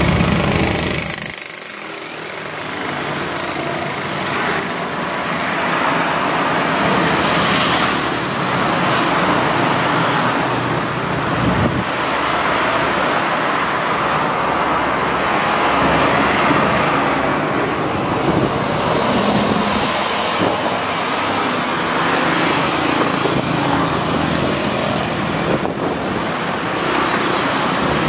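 Road traffic noise: a steady rush of engines and tyres from vehicles on a busy road, dipping briefly about two seconds in.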